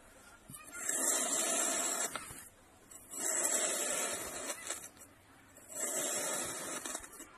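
Slime being squeezed and worked by hand in repeated strokes: three long bursts of crackly, squelching noise with short quiet gaps between.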